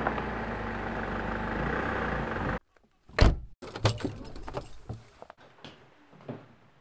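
A car engine runs steadily, then cuts off abruptly. A single heavy thump follows, then keys jangling and clicking at a front-door lock and handle, and near the end a couple of footsteps of leather boots on a hard floor.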